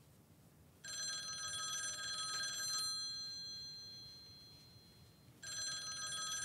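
Telephone ringing twice: a steady bell-like ring starting about a second in, lasting about two seconds and fading slowly, then a second ring starting near the end.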